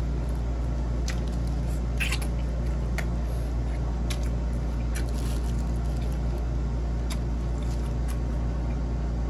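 A steady low hum with a few faint, short clicks scattered through it.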